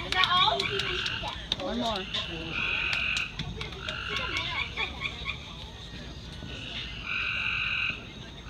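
Frogs calling: repeated steady-pitched calls, each lasting about half a second to a second, sounding one after another several times.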